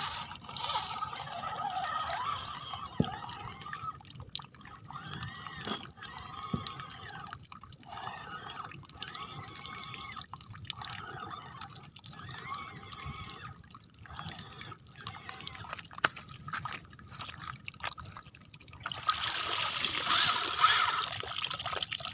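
Water trickling and dripping, with small irregular splashes and ticks; louder near the end.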